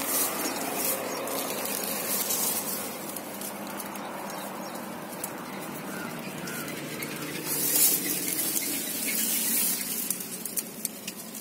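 Dry sugarcane leaves rustling and crackling as the camera is moved among the cane stalks, with a louder crackle about eight seconds in.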